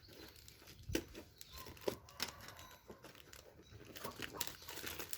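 Plastic packaging crinkling and tearing as a parcel is opened by hand: irregular rustles with a few sharper snaps, the loudest about one and two seconds in.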